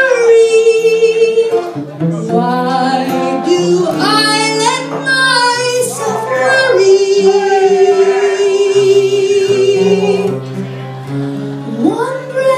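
A woman singing a slow ballad with long held notes to live acoustic guitar accompaniment, with one long note held near the middle.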